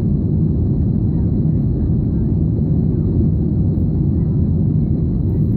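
Airbus A320 cabin noise in the climb after takeoff: a steady low rumble of the jet engines and airflow, with a faint, steady high whine above it.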